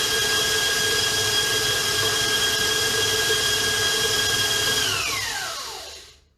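Electric stand mixer running steadily with a whine, beating royal icing with its paddle; about five seconds in the whine falls as the motor spins down to a stop.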